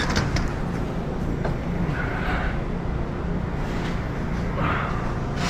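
Steady low hum of a vehicle engine running, with a few light clinks of steel load chain near the start and about a second and a half in.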